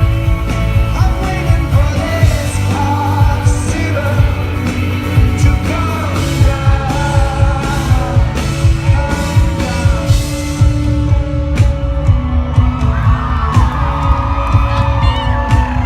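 A rock band playing live: a lead singer over bass and a regular drum beat, the high cymbal sound dropping away in the last few seconds.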